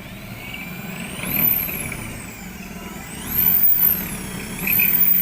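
A power tool's electric motor spinning up to a high whine and winding down, three times over.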